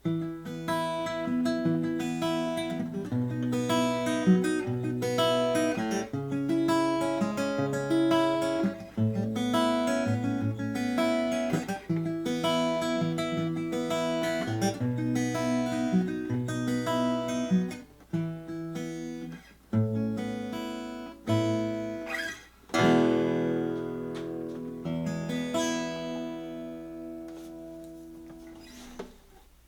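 1919 Martin 0-18 small-bodied acoustic guitar played solo: a picked tune with a bass line moving under the melody notes. About 23 seconds in, a full chord is struck and left to ring, slowly fading.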